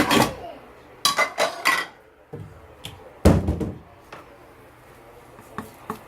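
Dishes clattering as a plate is handled: a knock at the start, a quick run of clinks about a second in, and a heavier knock a little after three seconds.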